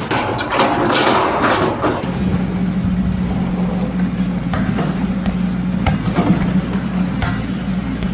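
An engine running steadily at a low, even pitch, with a few sharp knocks over it.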